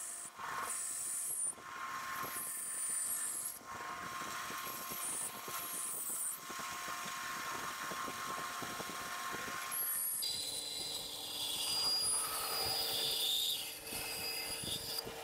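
1928 American Tool 36-inch bandsaw running steadily, its blade cutting through an ash spoon blank in stretches. About ten seconds in the sound changes and a higher whine comes in.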